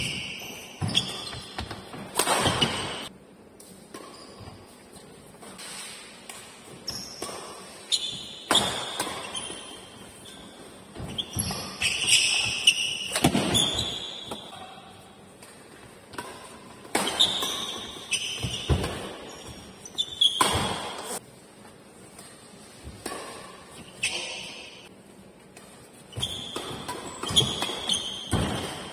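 Badminton rackets striking the shuttlecock in a doubles rally, sharp hits every second or two that echo around a large hall, mixed with short high squeaks of shoes on the court.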